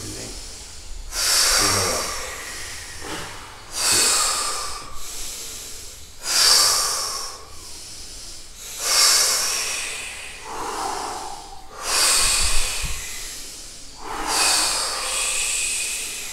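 People breathing deeply and rhythmically during breathwork-style over-breathing, a loud hissing breath drawn in or pushed out about every two and a half seconds.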